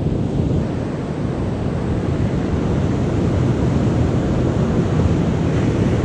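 Steady low rush of wind buffeting the microphone over the noise of heavy ocean surf, even throughout with no distinct knocks or splashes.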